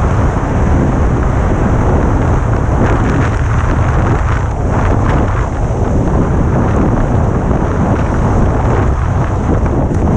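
Wind rushing over an action camera's microphone during a fast run down a groomed ski slope, a steady low rumble, with the hiss and scrape of edges on hard-packed snow.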